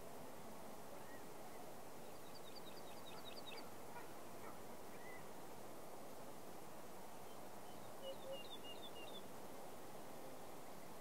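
Quiet outdoor ambience with a steady hiss and small birds chirping: a quick run of about eight high chirps a couple of seconds in, and another short chirping phrase about eight seconds in.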